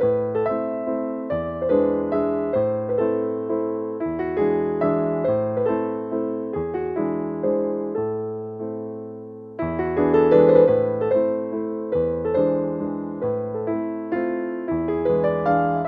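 Background music: a gentle keyboard melody over chords, notes struck in a steady rhythm, with a new phrase coming in louder about ten seconds in.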